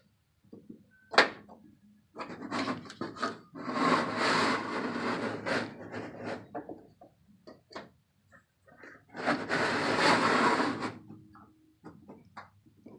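Handling noise: things rubbing and scraping, with scattered clicks and knocks and two longer stretches of scraping.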